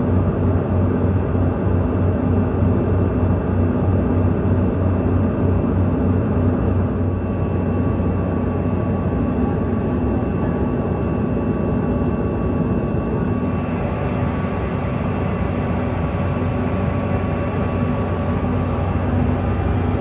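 Steady cabin noise of a CRJ-200 regional jet at cruise: the drone of its rear-mounted turbofan engines and the rush of air past the fuselage, with several steady hum tones running through it.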